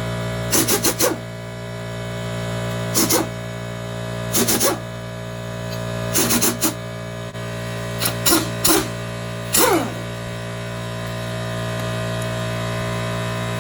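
Half-inch pneumatic impact wrench fired in a series of short trigger bursts, some in quick clusters, each spinning down with a falling whine, over a steady hum. It is working loose stuck bolts on a 12-valve Cummins engine.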